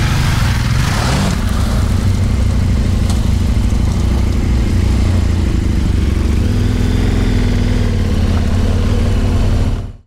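Adventure motorcycle engines running steadily at low speed over a stony gravel track, with tyre and road noise on top. The sound fades out near the end.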